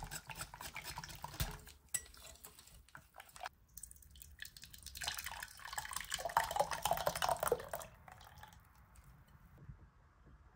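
Wooden whisk swishing and clicking through thin green mint liquid in a glass bowl, then the mixture poured from the bowl into a stainless steel saucepan, splashing steadily for about three seconds, the loudest part.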